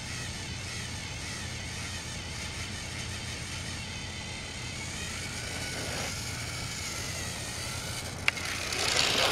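Battery-powered Trackmaster toy train engines whirring steadily as they run along plastic track. Near the end there is a sharp click, then a short, louder clatter.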